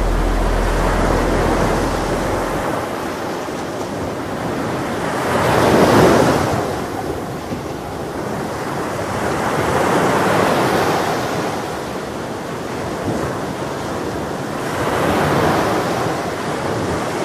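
Ocean surf: waves breaking and washing in, rising and falling in slow surges about every four to five seconds, the loudest about six seconds in.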